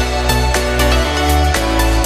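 Electronic dance music with a steady beat and deep bass.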